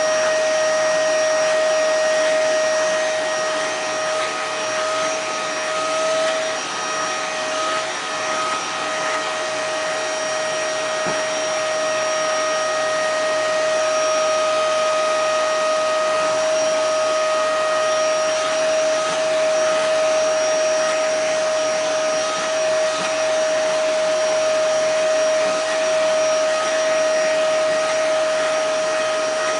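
Vacuum cleaner running steadily, a whirring motor noise with a high steady whine; the whine and level waver slightly a few seconds in.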